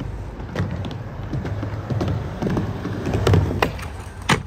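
Skateboard wheels rolling with a low rumble over a riveted-panel skatepark deck, with scattered clacks of boards and one sharp board clack near the end, as a trick is popped or landed.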